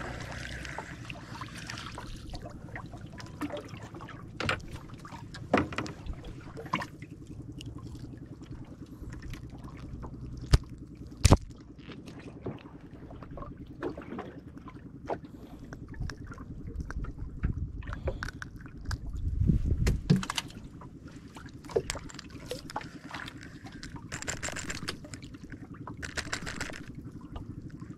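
Small fishing boat afloat: water sloshing against the hull over a steady low hum, with scattered knocks and clicks, two sharp clicks near the middle and a louder low thump-rumble a little later.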